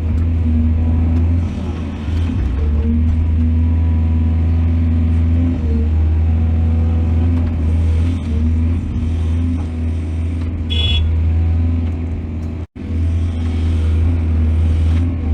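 Heavy diesel machinery engine running steadily with a low drone, as of an excavator at work. A brief high-pitched tone sounds about eleven seconds in, and the sound cuts out for an instant a little later.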